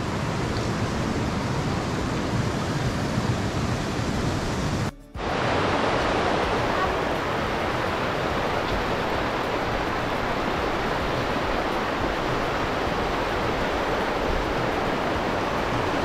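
Steady rush of falling water from a waterfall, even and unbroken apart from a short dropout about five seconds in.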